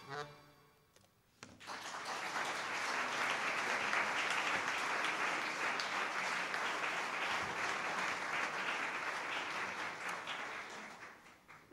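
A last accordion chord dies away, then audience applause starts suddenly about a second and a half in, holds steady for several seconds and fades out near the end.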